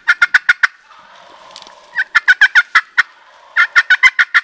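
Young wild turkey gobblers (jakes) gobbling loudly at close range: three rapid, rattling gobbles, each about a second long, about two seconds apart.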